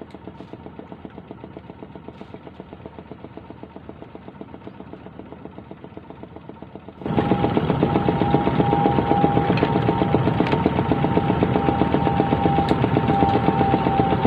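A small engine running steadily with an even, rapid firing pulse. About halfway through it suddenly becomes much louder and brighter, and a steady whine runs over it.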